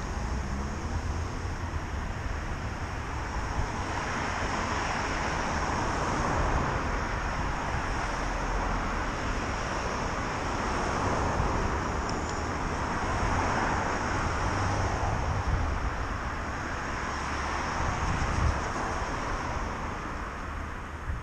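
Road traffic: several cars pass one after another, their tyre and engine noise swelling and fading, over a steady low rumble of wind on the microphone.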